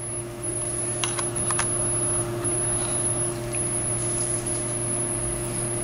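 Steady low electrical hum with a faint high whine, and a few faint light clicks about a second in.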